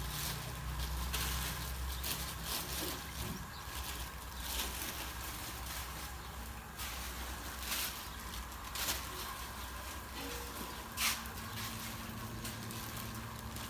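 Plastic bags crinkling in short, sharp rustles as they are handled and tied shut with string, several times. A steady low hum runs underneath.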